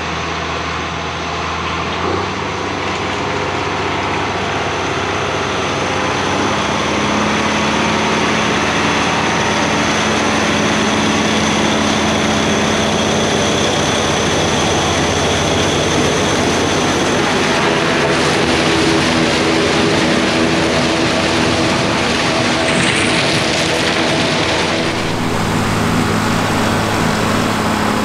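Diesel tractor engines and silage-chopping machinery running steadily under load. The engine tone shifts about six seconds in and again near the end.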